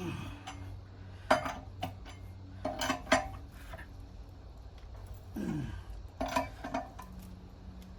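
Metal tools or parts clinking and knocking against each other during wheel and tire work, with several sharp ringing strikes spread through the stretch.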